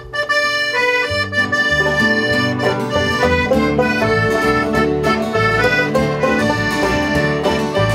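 Instrumental lead-in of an upbeat folk song, with accordion carrying the melody over strummed guitar and a steady bass line.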